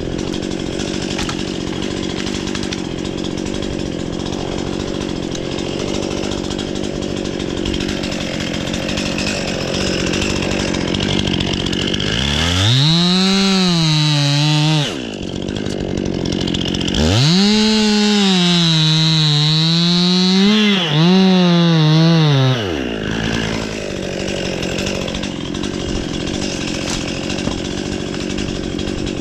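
Chainsaw engine running at idle, then opened to full throttle twice: bursts of about three and five seconds in which the engine pitch jumps up, sags and wavers as the chain cuts into the wood, then drops back to idle.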